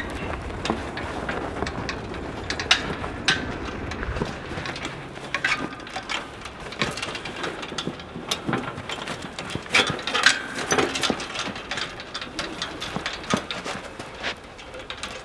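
A wheeled Countyline 25-ton log splitter being pulled by hand over snow: its hanging chain and steel frame clink and rattle in irregular knocks, with footsteps in snow. A low rumble fades out about four seconds in.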